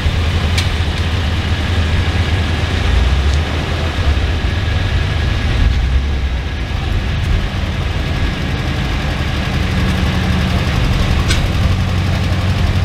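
Engine of a red Volkswagen Type 181 Thing running as it drives slowly past at low revs, with other show cars' engines in the background.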